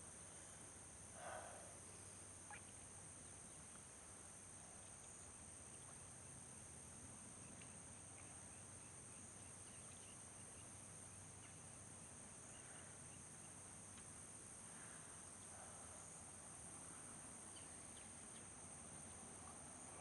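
Faint outdoor ambience: insects trilling steadily at a high pitch, with a few faint, short, scattered calls over it.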